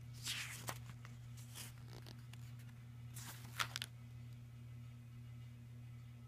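Three short rustling, scraping handling noises, each under a second, with a sharp click in the last one, over a steady low hum.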